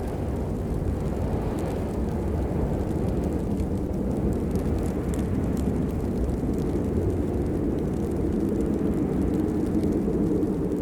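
Steady rain noise, a deep even rumble with a few faint, sparse ticks of drops over it.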